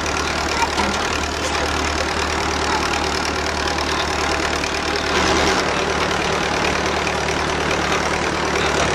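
Small farm tractor engine running steadily at low speed while towing a wagon along a trail, with a constant low hum that gets slightly louder about five seconds in.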